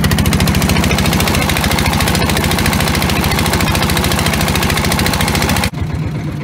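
Single-cylinder diesel engine of a wooden boat running at steady speed with a loud, fast, even chugging. Near the end the sound drops suddenly and the engine is heard more quietly.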